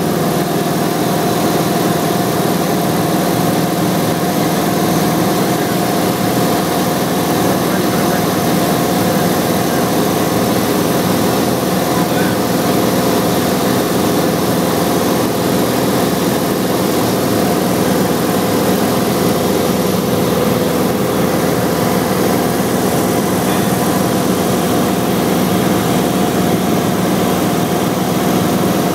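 Single-engine propeller aircraft in cruise: the engine and propeller make a steady, unchanging drone with several held tones, heard from inside the cockpit.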